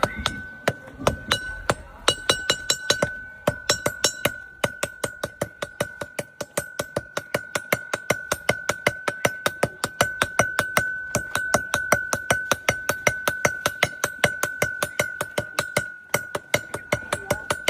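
Blacksmith's hammer striking a steel chisel on an anvil in rapid, even blows, about four to five a second, each with a sharp metallic clink over a steady high ringing from the anvil.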